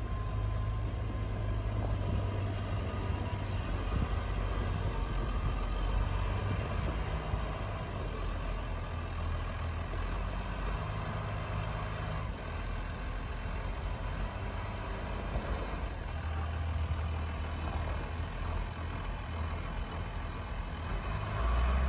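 Farm tractor's diesel engine running steadily while the front loader carries and stacks large square hay bales, its low rumble swelling and easing as the tractor manoeuvres.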